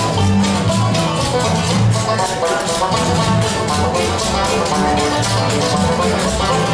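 Bluegrass band playing an instrumental: fast picked banjo and acoustic guitar notes with the fiddle bowing over them and an upright bass line pulsing underneath.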